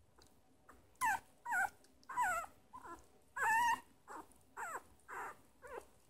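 Very young Shiba Inu puppy whining and squeaking: a run of about ten short, high calls, each bending up and down in pitch, starting about a second in. The owner reads these puppy sounds as the pup wanting more milk.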